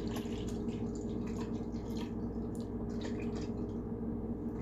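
Milk pouring in a stream from a carton into a stainless steel pot of milk, splashing irregularly.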